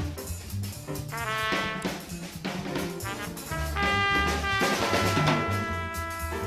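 Jazz background music: muted trumpet playing sustained notes over a walking bass line and brushed drums.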